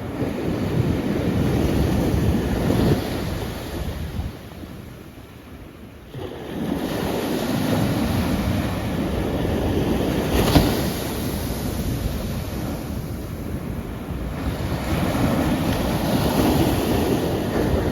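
Sea waves breaking and washing on a shore, the surf swelling and ebbing, with a lull of a couple of seconds and a sharper crash about ten seconds in. Some wind buffets the microphone.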